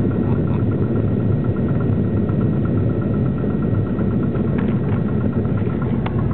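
Light aircraft's engine and propeller running steadily at low taxi power, heard from inside the cockpit as a constant drone with a fast, even pulsing.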